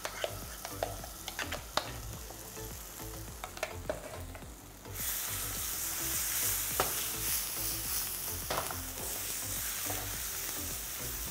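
Wooden spatula scraping and stirring thick chilli paste around a non-stick frying pan. About five seconds in, a steady sizzle of the paste frying in hot oil starts suddenly and carries on under the stirring.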